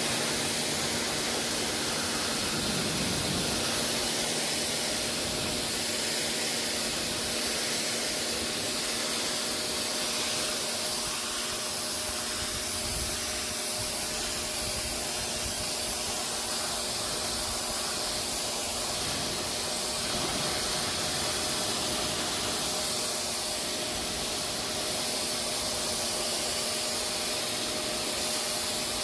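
Sun Joe SPX3200 electric pressure washer running, its water jet spraying with a steady hiss over the steady hum of its electric pump motor.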